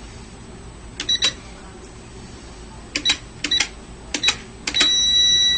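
EMX KPX-100 programmable keypad: about five key presses on its metal buttons, each a click with a short high beep, then a long steady beep near the end as the entered code is accepted and relay 1 activates.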